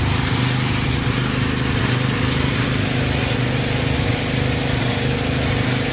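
Small engine powering a homemade bore-well drilling rig, running steadily.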